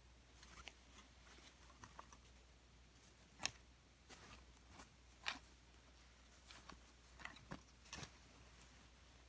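Near silence broken by faint, scattered clicks and taps, about a dozen at uneven intervals. The sharpest come about a third of the way in, just past halfway, and near the end.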